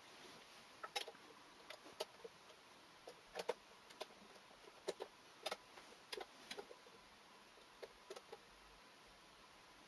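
Faint, irregular clicks and light taps, a dozen or so at uneven spacing, like small hard objects being handled and set down.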